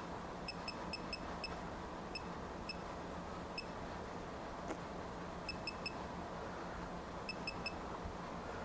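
Digital torque wrench beeping as its buttons are pressed to set the target torque: many very short, high pips, some single and some in quick runs of three or four.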